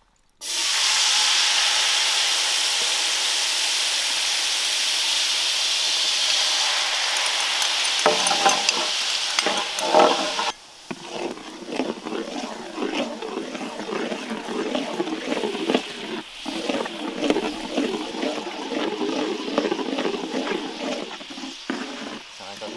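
Sweet and sour sauce poured onto pork ribs in a hot pan, hitting the hot surface with a sudden loud hiss that holds steady for about ten seconds. After an abrupt drop, the sauce bubbles and crackles irregularly as it is stirred.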